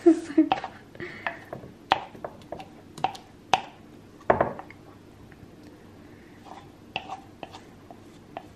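Kitchen utensils tapping and scraping against mixing bowls as melted chocolate is scraped from one bowl into another: irregular clinks and knocks, the loudest a little past four seconds in.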